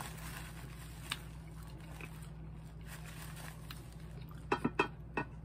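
A person chewing a mouthful of food with the mouth closed, over a steady low hum. There is a faint click about a second in, and a few quick sharp clicks close together near the end.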